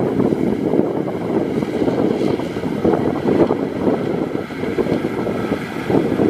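Maxxi HD NDR 85 rice combine harvester running steadily while cutting and threshing standing rice, a continuous mechanical hum of engine and threshing drum.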